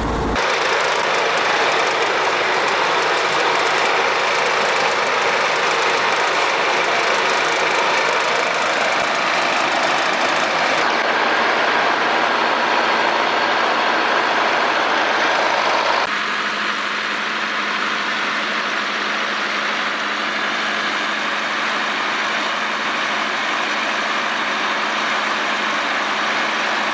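DT-75 crawler bulldozer's diesel engine running steadily while it works the driveway. The sound changes abruptly about ten seconds in and again around sixteen seconds in, as the recording cuts between shots.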